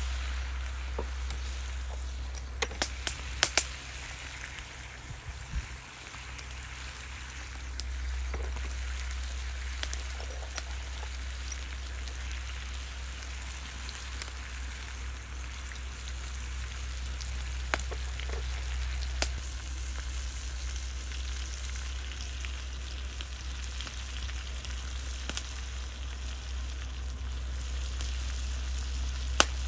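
Pieces of meat and onion sizzling steadily as they fry in a cast-iron kazan, with a few sharp clicks about three seconds in.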